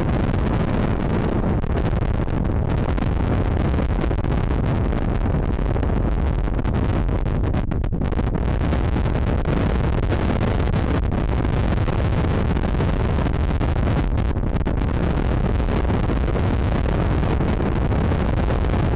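Wind buffeting the camera's microphone: a loud, steady low rumble that covers any sound from the match.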